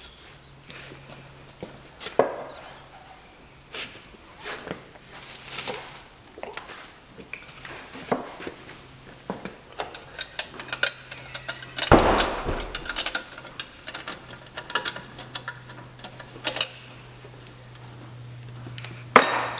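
Metal clinks and clicks of a spanner working a half-inch nut and of the air-filter trunking being handled, thickest past the middle, with a louder knock about two thirds of the way through and another near the end. A steady low hum lies underneath.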